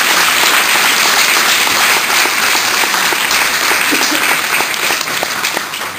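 Audience applauding: a dense, steady clatter of many hands clapping that eases slightly near the end.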